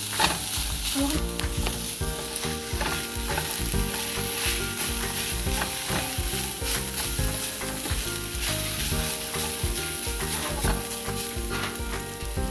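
Shredded chicken frying in hot oil with garlic and onion, a steady sizzle, while a utensil stirs and scrapes it around the pan in frequent short clicks.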